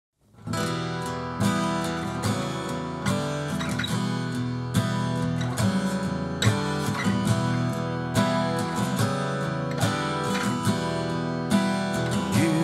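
Guitar strummed in a steady rhythm, playing the instrumental intro of a song before the vocals come in.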